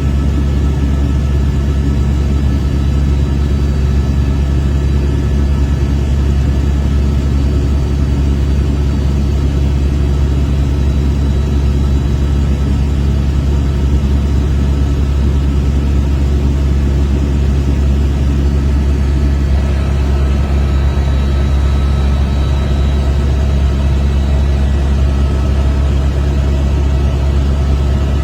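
Helicopter running steadily in flight: a loud, constant low drone with a few faint, steady whining tones above it.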